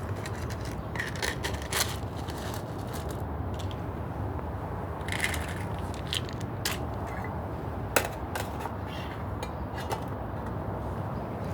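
Dry cat kibble being handled: scattered light clicks, crunches and scrapes, the sharpest about eight seconds in, over a steady low background rumble.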